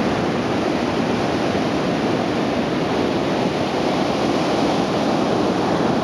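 Steady roar of surf mixed with strong onshore wind blowing over the microphone.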